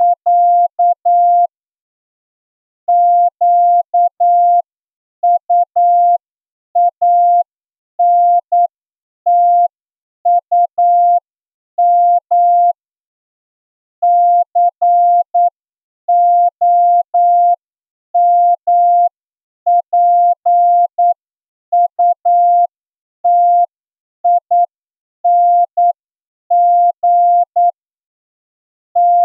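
Morse code sent as a single steady beep tone keyed in short and long elements, grouped into characters with pauses between them, at the slow 8 words-per-minute speed of a receiving test: the one-minute practice line of a Morse receiving examination.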